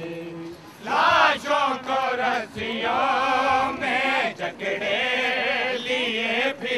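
Male voices chanting an Urdu nauha (mourning lament) in a drawn-out, wavering melody, the chant starting again about a second in after a short pause.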